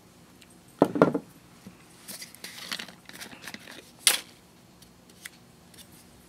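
A small painted wooden box is set down on a craft table with a couple of knocks, then scraping and rustling as it is handled. About four seconds in there is a sharp click as a paintbrush is laid down among loose metal embellishments.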